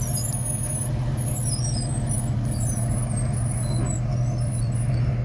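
A motor vehicle's engine running with a steady low drone, with thin high squeals and chirps over it.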